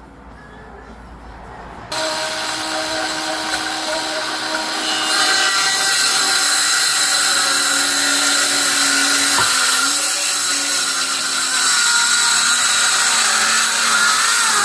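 Electric power saw starting up about two seconds in and running steadily while cutting a wooden worktop board to length, its whine dipping briefly under load partway through the cut.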